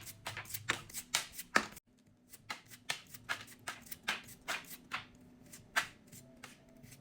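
Pokémon trading cards from a freshly opened booster pack being flicked through one at a time, a quick papery snap for each card about three to four times a second. There is a short dead break a little under two seconds in before the flicking picks up again.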